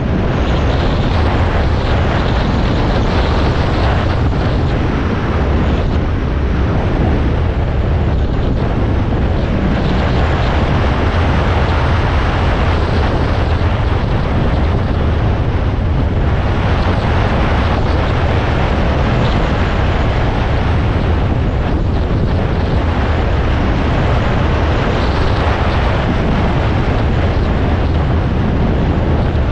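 Dual-sport motorcycle riding steadily along a gravel road: an even engine drone mixed with wind rush on the microphone and tyre noise from the gravel.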